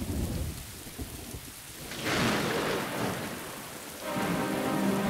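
Thunderstorm sound effect opening the song: steady rain with thunder rumbling at the start and a louder clap of thunder about two seconds in. Music comes in over the rain about four seconds in.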